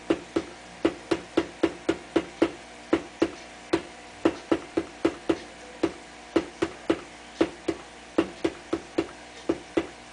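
Rapid, steady tapping on the floor, about three knocks a second, each with a short hollow ring. The taps set off the built-in microphone of a sound-activated DMX light controller, and each one steps the light show forward.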